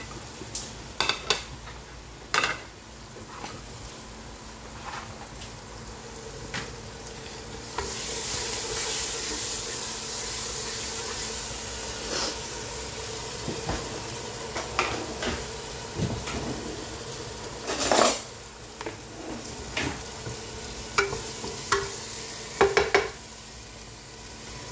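Biryani masala frying in a non-stick pan, stirred with a wooden spatula that clicks and knocks against the pan. The sizzle swells about a third of the way in and eases after a loud knock about two-thirds through.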